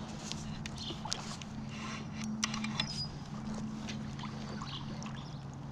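Water lapping and splashing around a small plastic fishing kayak, with scattered sharp clicks and knocks and a steady low hum underneath.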